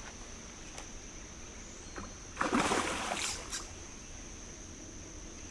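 A hooked fish splashing in the creek for about a second, starting about two and a half seconds in, as it is reeled to the bank. Behind it is a steady, high-pitched insect buzz.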